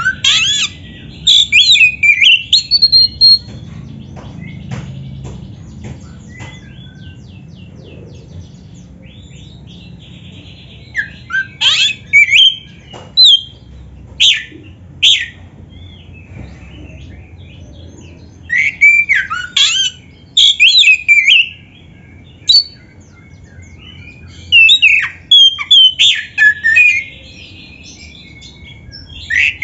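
Oriental magpie-robin (kacer) in loud, combative full song: four bursts of rich, fast-gliding whistled phrases, coming a few seconds apart, with softer chirps in the pauses between them.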